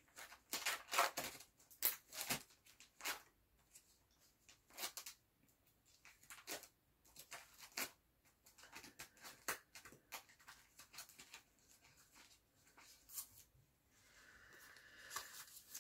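Faint, irregular rustling and clicking of sticker sheets and papers being handled and sorted through.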